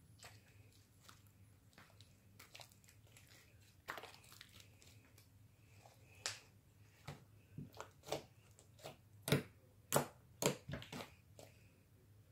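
Homemade slime being poked and squished by hand, making a string of sticky clicks and pops. They are sparse and faint at first, then come thicker and louder in the second half, with the loudest pops a little after the middle.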